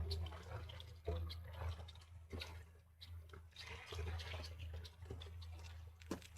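Water splashing and sloshing against a small boat's side, over a low rumble that swells and fades.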